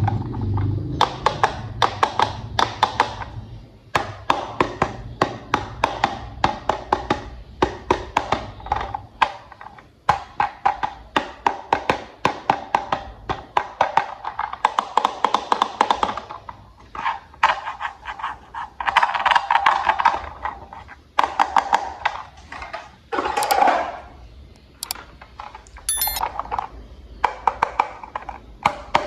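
Plastic toy train parts being handled and snapped together: a run of quick clicks and taps, several a second, with brief pauses between bursts.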